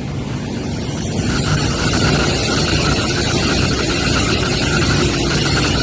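Fuxing high-speed train running past close along the platform track: a rush of wheel and air noise that swells about a second in, with a steady high whine over it.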